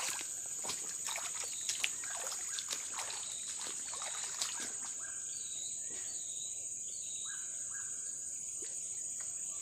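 A steady high-pitched insect drone. In the first few seconds there is splashing and sloshing as rubber boots wade through shallow pond water, and a few short bird calls come in the second half.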